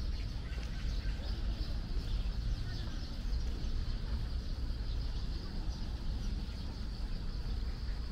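Outdoor park ambience: a steady low rumble under a high hiss, with a few faint bird chirps.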